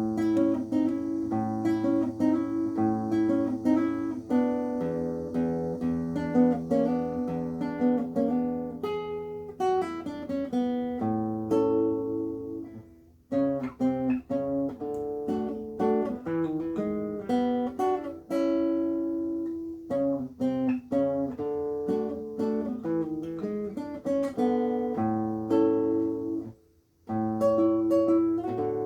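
Solo acoustic guitar playing a fingerpicked piece, with a plucked melody over held bass notes. The playing pauses briefly about 13 seconds in and again near the end.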